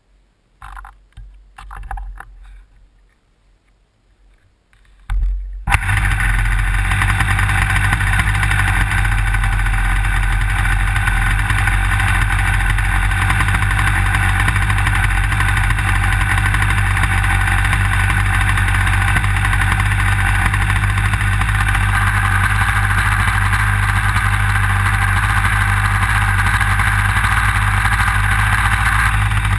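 Jett .90 two-stroke glow engine on an RC airplane, heard from right beneath it: a few scattered knocks and clicks as the propeller is flicked by hand, then about five seconds in the engine catches and runs steadily at an even level.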